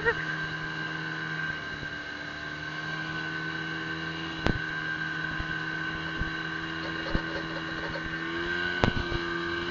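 A small boat's engine running steadily under power, its pitch rising slightly near the end, with a few sharp knocks along the way.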